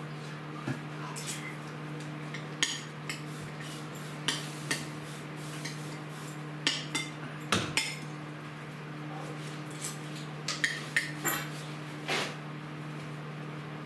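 Dishes and other kitchen items clinking and knocking at irregular moments as they are handled and set down on a worktop, over a steady low hum.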